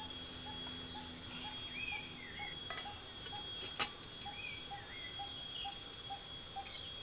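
Forest ambience: a short call repeating steadily about three times a second, a bird warbling now and then above it, and a constant high whine. About four seconds in, a single sharp metallic click as the steel pot on the camp stove is handled.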